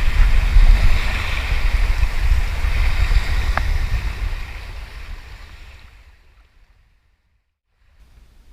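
Wind rumbling on the microphone over the sound of the sea around a boat. It fades out over about two seconds, a little past the halfway mark, into silence.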